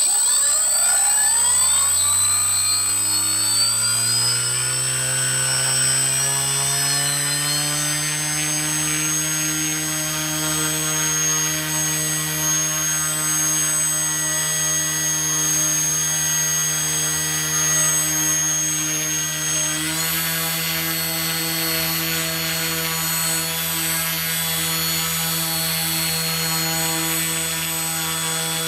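DualSky XM4010TE-5 brushless outrunner motor driving an APC 12x3.8 propeller, spinning up with its pitch rising over about eight seconds, then running steadily at speed. Its pitch steps slightly higher about two-thirds of the way through.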